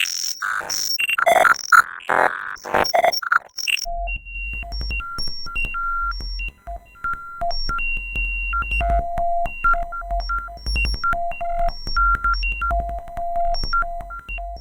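Computer-generated synthesizer tones sonifying a harmonic-series pattern. For the first four seconds they form a fast, dense jumble of clicking, shifting tones. Then comes a sequence of pure beeps hopping among a few pitches an octave apart, each with a click at its start, over a low hum.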